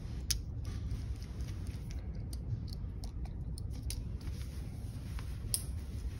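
A small screwdriver loosening screw terminals on a plastic terminal block, with wires being pulled free: a scattering of small clicks and ticks, the sharpest near the end, over a steady low hum.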